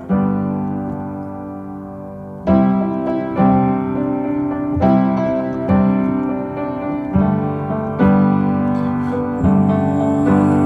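Background music: piano chords struck one after another in a slow, uneven rhythm, each left to ring. This is an instrumental break between the sung lines of a pop song.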